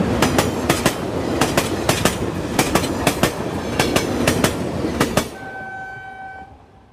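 Passenger train's wheels clicking over rail joints at speed: a rhythmic clickety-clack of quick double clicks about every half-second. About five seconds in the clicking stops and a single steady horn note sounds for about a second as the train noise fades away.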